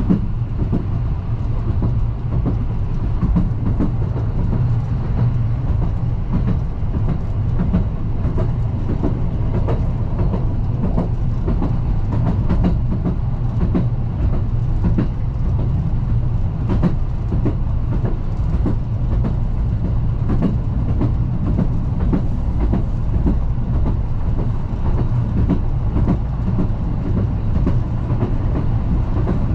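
Metre-gauge Chemins de Fer de Provence diesel railcar under way, heard from the cab: a steady low running drone with frequent irregular clicks and knocks from the wheels on the track.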